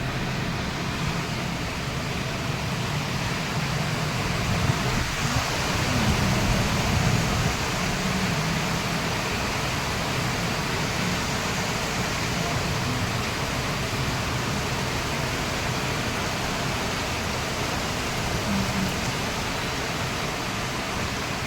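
Heavy rain falling: a steady, even hiss throughout, with a faint low rumble underneath.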